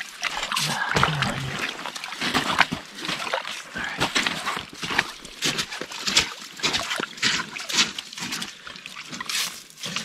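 Wet sloshing and splashing as a lake trout is handled, unhooked and lifted from a slush-filled ice-fishing hole. It comes as a run of short, irregular splashes and drips.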